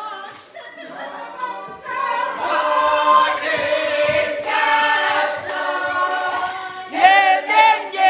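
A group of voices singing together in harmony, with held notes, growing louder about two seconds in. A brief louder burst of voices comes near the end.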